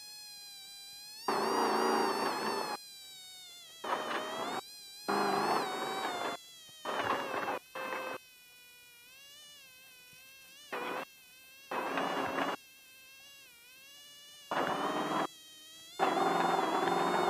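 Onboard sound of an off-road race vehicle at speed: a steady high-pitched whine whose pitch drifts up and down, with bursts of engine and road noise that cut in and out abruptly several times.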